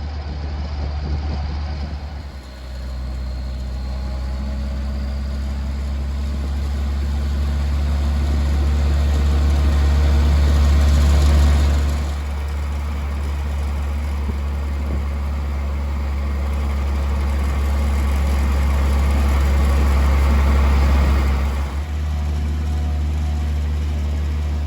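Motor vehicle engine running steadily. It grows louder twice and drops back sharply each time, about halfway through and again near the end.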